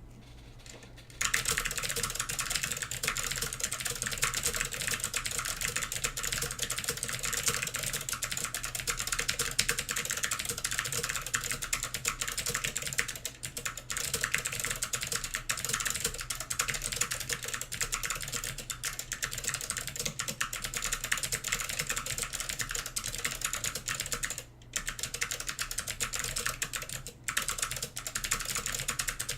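Apple IIc keyboard with SKCM Amber Alps switches being typed on fast and continuously, a dense run of clicky keystrokes. It starts about a second in, with two brief pauses near the end.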